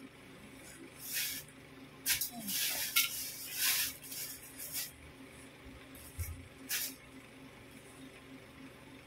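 Rustling of fabric and a plastic bag as second-hand dresses are pulled out and shaken out, in several short swishing bursts, most of them in the first half.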